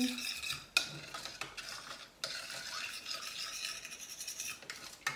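A spoon stirring juice in a small stainless-steel pot: steady scraping against the metal, broken by a few sharper clinks.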